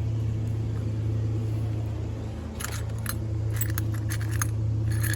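Light metallic clinks and rattles from small metal parts being handled, starting about two and a half seconds in, over a steady low hum.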